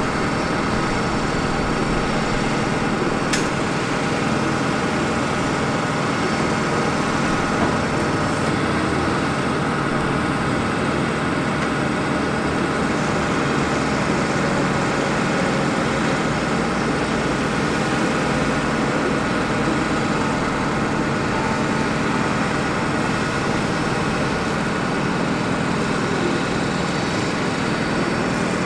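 The truck's 6.4-litre Power Stroke V8 diesel running steadily, powering the hydraulics while the bucket boom is moved, with a steady hum and a faint whine. A single sharp click about three seconds in.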